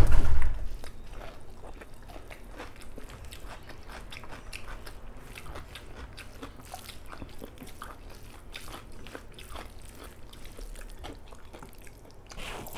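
Close-miked eating by hand: soft wet chewing and mouth clicks, with rice and curry being squished and mixed on a banana leaf. A loud thump comes right at the start and a smaller burst near the end.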